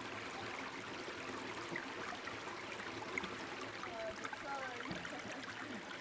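Steady rush of a mountain stream flowing over rocks.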